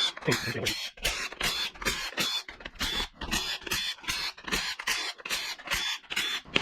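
Small 3/8-inch-drive cordless impact wrench run in quick short blips, a high whine in each, working bolts off an engine.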